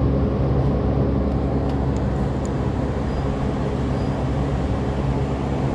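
A steady low machine hum runs throughout, with a few faint light ticks from small metal tools.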